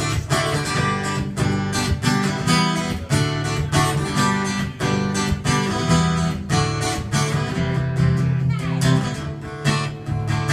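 Acoustic guitar strummed in a steady rhythm of chords: the instrumental intro of a song before the vocals come in.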